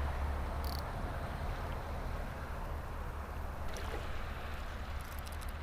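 Steady wash of water around a kayak at sea, with a low rumble and a few faint clicks.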